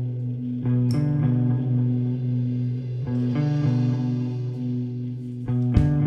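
Live instrumental band: electric guitars through effects playing slow, sustained chords over bass notes, the chord changing every second or so. Two sharp drum hits cut through, about a second in and near the end.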